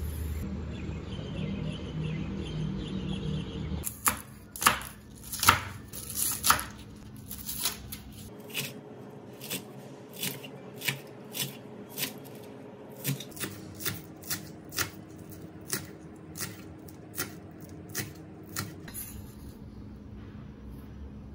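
Kitchen knife chopping on a cutting board in slow, even strokes, roughly one every two-thirds of a second, the first few strokes the loudest. Before the chopping starts there are about four seconds of steady rushing noise.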